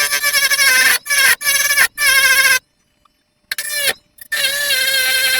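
Metal battery tabs being scraped clean before soldering, giving a loud, high-pitched squeal in several bursts of about a second each, with a break about three seconds in.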